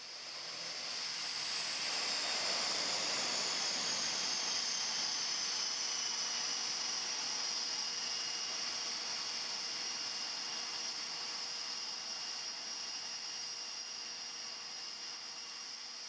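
Aircraft turbine engine running: a steady hiss with a high whine that slowly falls in pitch. It fades in over the first couple of seconds.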